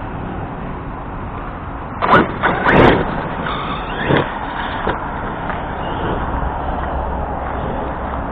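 Arrma Kraton RC truck with its brushless BLX drive being driven in short bursts over rocky ground: quick rising and falling motor-and-tyre noise about two to three seconds in and again near four seconds, over a steady outdoor hiss.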